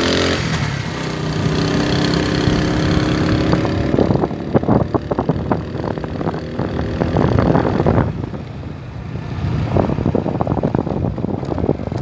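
A motor vehicle's engine running while it drives over a loose gravel road bed, its pitch rising a little over the first few seconds. After about four seconds the engine note gives way to rough crackling tyre and wind noise.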